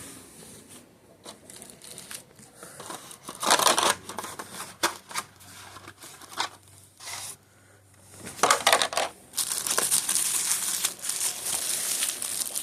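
Packaging being handled and unpacked: plastic wrapping crinkling and rustling in irregular bursts, with scrapes and light knocks of the box, getting busier toward the end.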